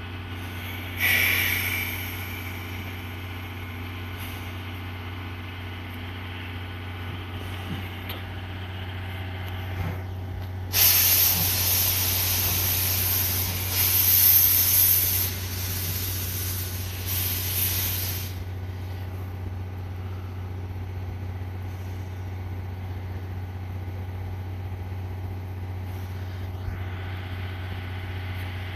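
Stationary steam-hauled passenger train with a steady low hum underneath. A short hiss comes near the start, and a long, loud hiss of about seven seconds, typical of air brakes, comes in the middle.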